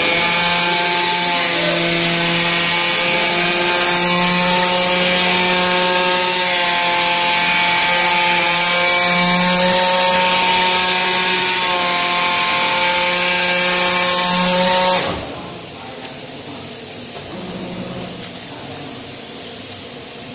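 An AOKE DCZ70 digital flatbed cutter's cutting head working through PP corrugated sheet: a loud, steady buzz with a hiss over it. It stops suddenly about 15 seconds in, leaving a quieter steady hiss.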